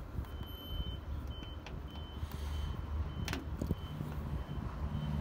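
Low, steady rumble of a vehicle running nearby, with a high thin beep that comes and goes in short pieces. Two light clicks a little after three seconds in.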